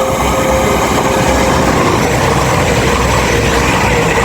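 East Midlands Railway Class 222 Meridian diesel multiple unit running through the station without stopping. Its engines and wheels on the rails make a loud, steady rush of noise.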